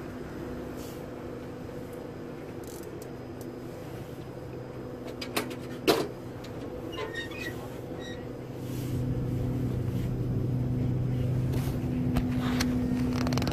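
Commuter river ferry's engines running with a steady hum, swelling louder about two-thirds of the way through as the boat comes in to the pier. Two sharp knocks sound near the middle, followed by a few short high beeps.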